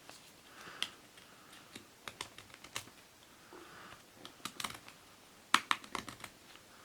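Pocket knife blade cutting into a material with slow scraping strokes, mixed with scattered sharp clicks and ticks, thickest near the end. The large blade cuts easily without having been sharpened.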